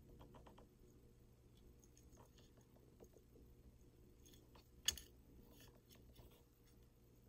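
Faint clicks and taps of a clear plastic ruler and protractor being shifted about on a suture practice pad, with one sharper click about five seconds in.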